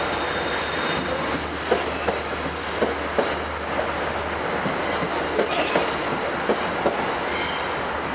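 Metro-North passenger cars rolling past a station platform, with irregular clicks as the wheels cross rail joints. A thin high wheel squeal sounds during the first second.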